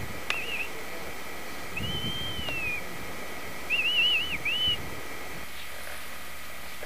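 Whistling in three phrases: a short warble, a long arching whistle that rises and falls about two seconds in, then a quick run of warbled notes around four seconds in.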